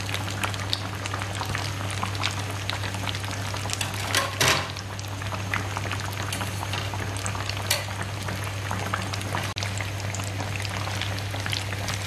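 Breaded bread patties deep-frying in hot oil: a steady sizzle and crackle of bubbling oil, with a louder burst of crackling about four seconds in.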